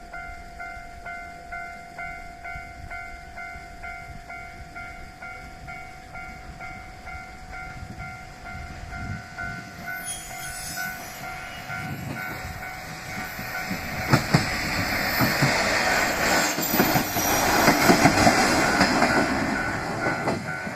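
Japanese level-crossing warning bell ringing in a steady, rapid repeat. From about halfway, a train comes up and passes the crossing at full loudness during the last third, its wheels clicking over the rail joints and drowning out the bell.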